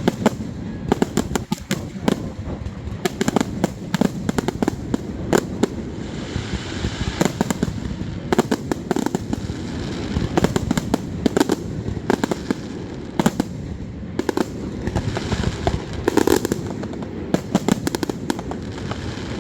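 A fireworks display: rapid cracks and pops throughout, over a continuous low rumble, with heavier deep booms from aerial shells bursting every few seconds.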